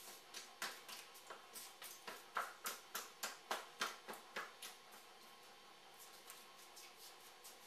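Faint, even taps of fingertips on the body, about three a second, tapping along the bladder meridian over the head, down the back and down the backs of the legs. The taps grow fainter after the middle and become sparse toward the end.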